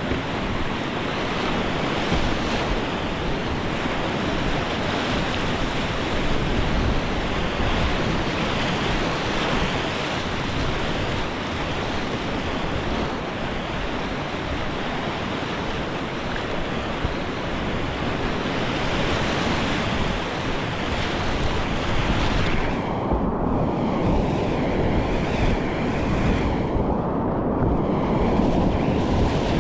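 Rushing whitewater of river rapids, a loud steady churn of moving water. About three-quarters of the way through the hiss drops away and the water sounds duller.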